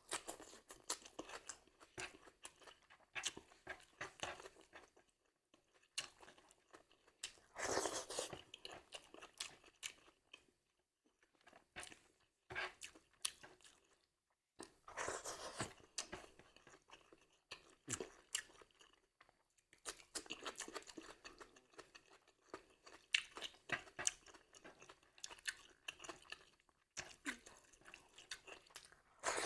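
Close-miked chewing and crunching of crisp food, in irregular bursts of bites and chews with a few brief pauses.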